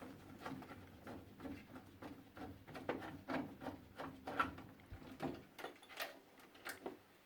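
Irregular small clicks and knocks of hands handling objects, several a second at times, over a faint steady hum.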